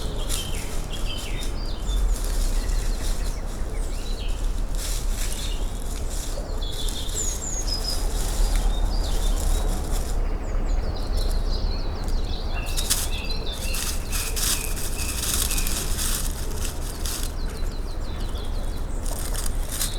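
Woodland birdsong: several birds chirping and trilling in high short phrases throughout, over a steady low rumble.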